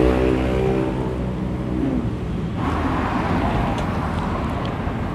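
Street traffic passing: a vehicle engine's hum fades away in the first second, then a car goes by, its tyre and engine noise swelling about two and a half seconds in.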